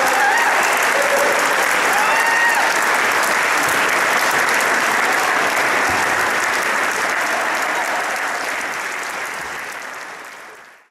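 Audience applauding, with a few voices heard over the clapping in the first couple of seconds. The applause fades out near the end.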